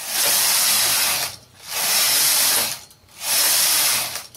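Domestic knitting machine carriage pushed back and forth across the metal needle bed, knitting rows: three passes, each a noisy rattling hiss about a second long with a short break between.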